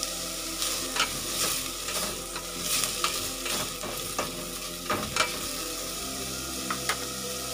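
Diced carrots and green peppers sizzling in hot oil in a stainless steel pot, stirred with a plastic spatula that scrapes against the pot several times.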